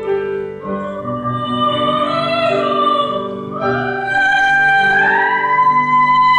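Soprano singing in classical, operatic style with piano accompaniment; the voice climbs about halfway through and holds a high note toward the end.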